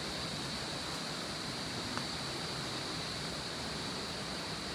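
Steady rushing of a waterfall, with a steady high-pitched hum over it.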